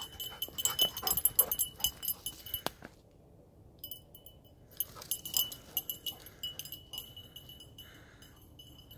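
A dog's collar jingling as the dog moves about searching, quick metallic clinks with a ringing tone, in two spells with a short pause about three seconds in.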